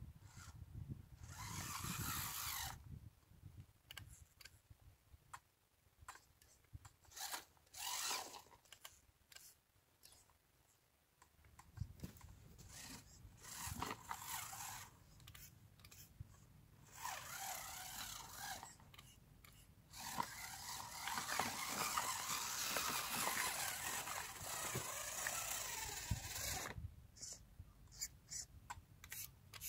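Homemade RC car's motor whirring in bursts of one to three seconds as it drives over rough dirt and stones, with a longer run of about six seconds some twenty seconds in; tyres scrape and stones click between the bursts.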